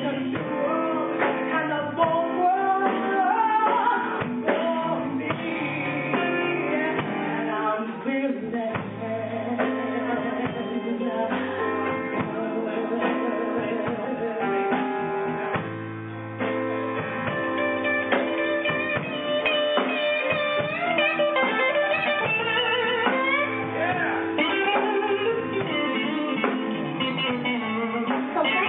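Live band music: a woman singing over keyboard, drum kit and electric guitar.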